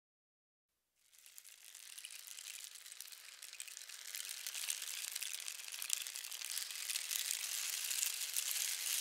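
Rain falling: a dense, fine patter and hiss that fades in from silence about a second in and grows steadily louder.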